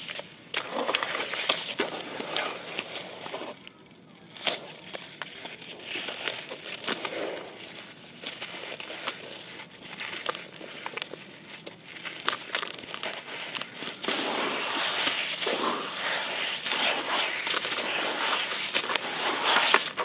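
Wet concrete chunks being crushed and crumbled by hand in muddy water: irregular gritty crunches and crackles with wet squelching. About two-thirds of the way in it turns into a louder, steadier gritty churning as the crumbs are mashed in the water.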